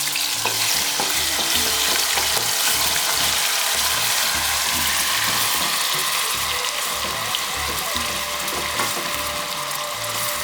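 Onion paste frying in hot oil with whole spices: a steady, dense sizzle that eases slightly toward the end.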